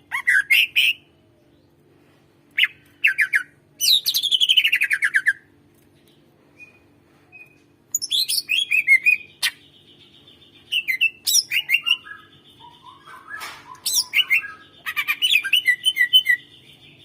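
Cucak ijo (greater green leafbird) singing loud, rapid phrases of whistled, gliding and chattering notes, with a falling run of notes about four seconds in. After a pause of a couple of seconds the song resumes densely, with a held buzzy whistle twice under the chatter.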